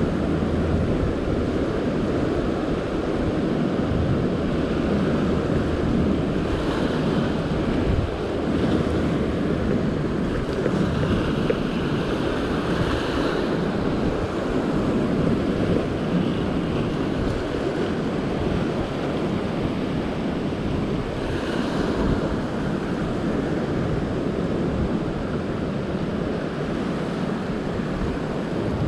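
Ocean surf washing over a rock platform: a steady rush of breaking waves with a few louder splashes, and wind on the microphone.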